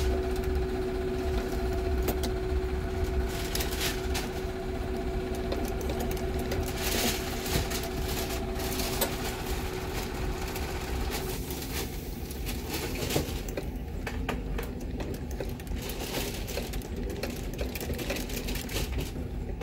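Cobbler's sewing machine stitching through the leather upper of a shoe, with a rapid clatter of needle strokes. A steady hum runs under it and stops a little over halfway through, while the stitching clatter carries on.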